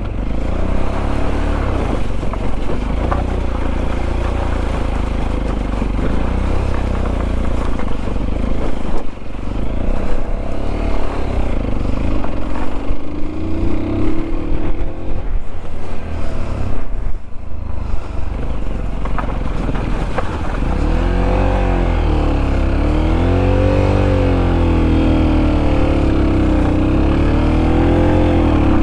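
Sinnis Terrain 125 motorcycle's single-cylinder engine running under changing throttle on an off-road ride, its pitch rising and falling as the revs come up and drop, swinging up and down repeatedly in the later part, over a steady low rumble.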